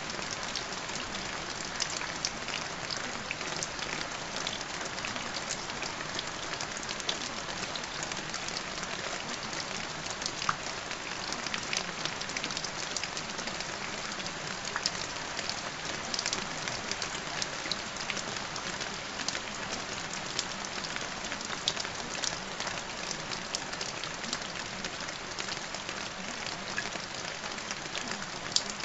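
Steady rain falling on a hard surface, a continuous wash of noise dotted with many sharp little drop ticks.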